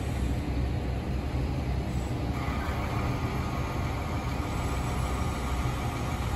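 Truck-mounted crane's diesel engine running steadily as it holds and swings a steel beam, with a faint higher whine joining about two seconds in.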